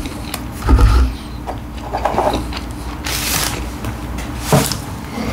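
Close-miked eating sounds: chewing and handling of a stacked chicken sandwich and its paper wrapping. There is a low thump about a second in and a brief rustle around three seconds in.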